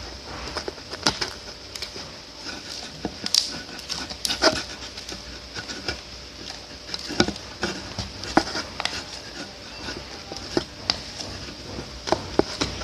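Slime being stirred in a container: irregular sticky clicks and squelches as the mixture thickens.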